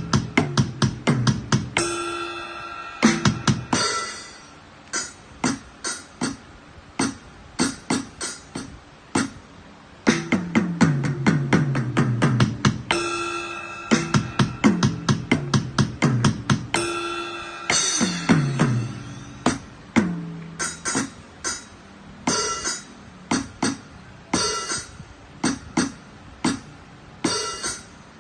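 Medeli electronic instrument playing sampled drum-kit sounds: quick runs of drum and cymbal hits mixed with pitched electronic tones and falling low notes, in short phrases with brief pauses between them.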